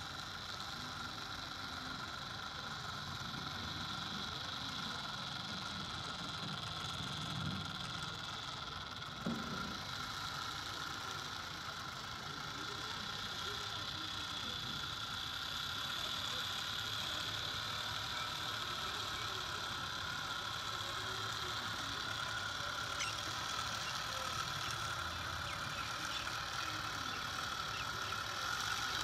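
Small geared electric motors of toy model tractors whining steadily as the two tractors strain against each other in a tug-of-war. There is a short low thump about nine seconds in.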